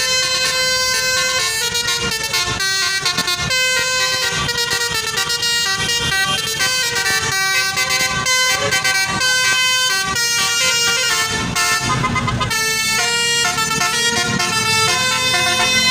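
Indonesian bus 'telolet' basuri horn playing a fast melody of many short, changing notes, one after another. A brief low rumble comes through about twelve seconds in.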